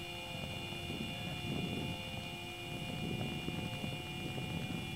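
Outdoor background: low wind rumble on the microphone rising and falling in slow swells, under a faint steady high whine.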